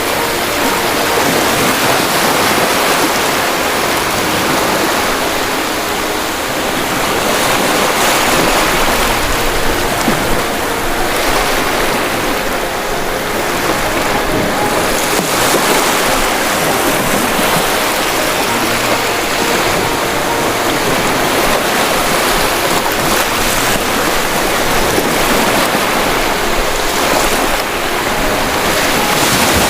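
Ocean waves washing onto shore: a steady, loud rush of surf that swells and eases slightly.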